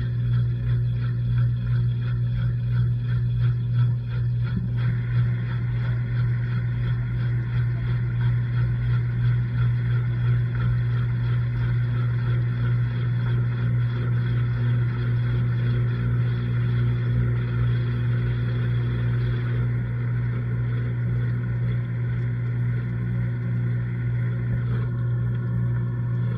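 LG washing machine running through its cycle, heard from inside the drum: a steady, unbroken low motor hum with a churning layer above it that changes slightly about five seconds in and again near the end.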